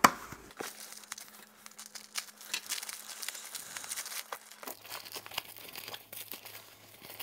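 Foam packing wrap crinkling and rustling in irregular bursts as hands unwrap it from a chain and small mounting hardware.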